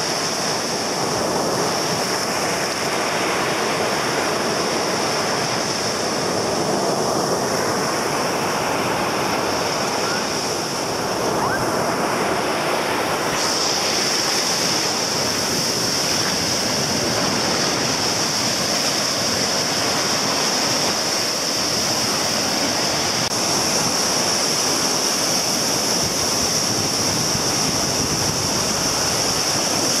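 Sea surf breaking and washing up a sandy beach close by, a continuous rush of waves and foam. A steady high hiss runs over it and grows louder about halfway through.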